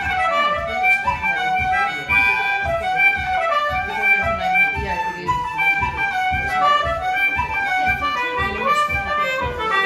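Flute and concertina playing a fast tune together, with quick runs of notes over a steady pulse.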